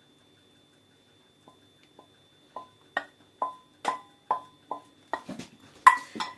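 A kitchen utensil knocking against a metal pan, likely to get the last of the melted cream mixture out. The knocks come about two a second, start faint about a second and a half in and grow louder, and each one rings briefly.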